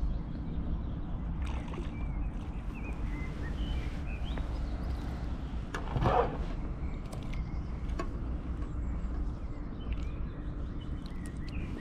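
Steady low wind rumble on the microphone with faint birds chirping, and a brief louder rustling noise about six seconds in.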